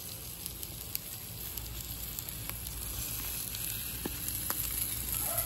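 Thick ribeye steaks sizzling on a hot charcoal grill grate, a steady hiss with scattered small crackles and pops of fat, growing slightly louder.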